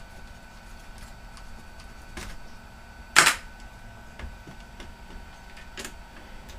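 Laptop parts being handled during disassembly: scattered small plastic and metal clicks and taps, with a sharp clack about three seconds in and another near the end.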